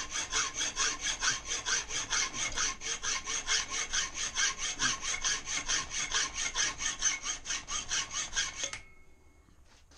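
Hand hacksaw cutting through soft aluminium sheet in rapid, even back-and-forth strokes. The sawing stops abruptly about nine seconds in.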